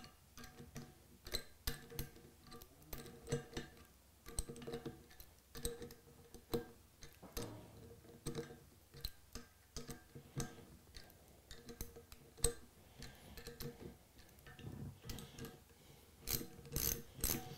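Faint scattered metallic clicks and taps as connecting rod cap bolts are handled and threaded into the rod. Near the end a ratchet wrench clicks in a quick even run, about four clicks a second, as it drives the bolts down to contact tight.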